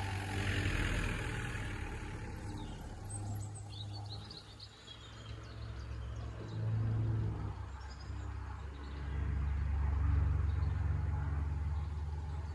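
Outdoor ambience: a steady low rumble that swells near the end, with a few brief bird chirps about three seconds in.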